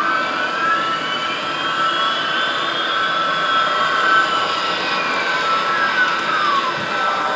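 Model trains running on the layout, giving a steady high whine, with other tones that slowly rise in pitch, hold, and fall back over several seconds.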